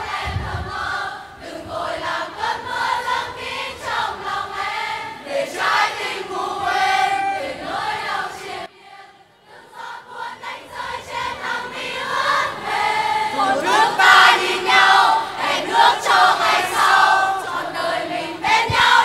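A large concert crowd singing a Vietnamese pop ballad together in unison, breaking off briefly about halfway through before picking the song up again.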